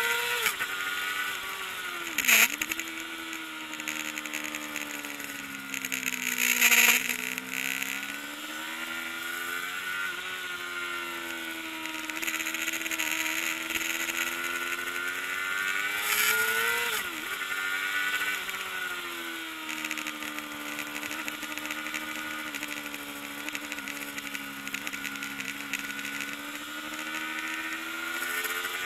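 Kawasaki ZXR400 racing motorcycle's four-cylinder engine at race pace, held high in the revs. The revs drop sharply three times, about two, seven and seventeen seconds in, then climb again.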